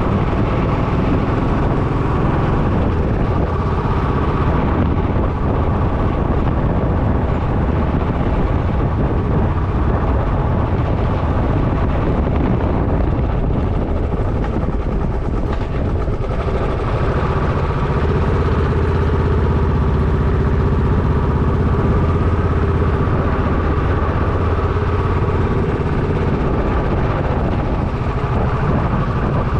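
Motorcycle riding at a steady pace: the engine runs evenly under a heavy rush of wind on the microphone.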